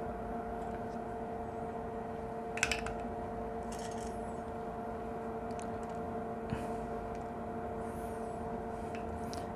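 Steady electrical hum from workbench equipment during hand soldering of a connector pin, with one brief click about two and a half seconds in and a few faint high ticks.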